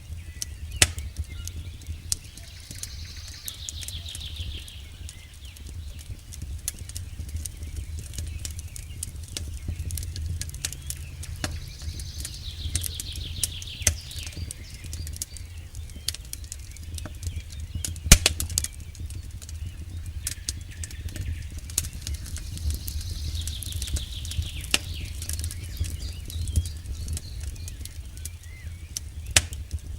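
Wood campfire crackling with frequent sharp pops, one of them louder past the middle, over a low steady rumble. A bird sings a short falling trill three times, about ten seconds apart.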